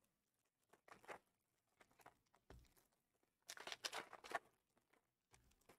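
Foil trading-card pack wrappers crinkling and rustling as they are handled, in a few faint short bursts, the longest and loudest about three and a half seconds in. A soft knock comes about halfway through.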